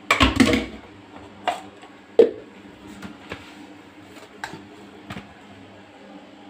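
A scrubbing brush rubs and scrapes against a stainless steel sink in one short, loud burst. It is followed by about six light, separate knocks and taps on the metal.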